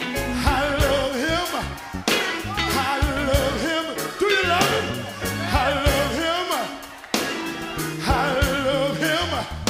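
Gospel song: sung vocals with wavering vibrato over a band with bass and drums.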